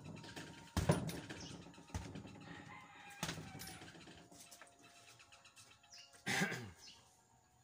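Fists striking a hanging heavy punching bag, three hits about a second apart, followed about six seconds in by a brief rooster crow with a falling pitch.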